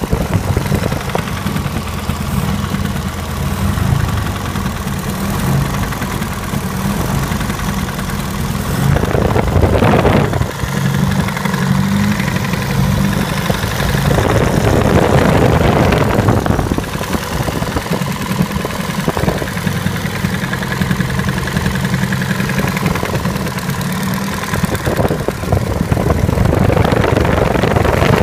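Engine idling with a knock, the fault the recording is made to show. The engine note swells louder a few times.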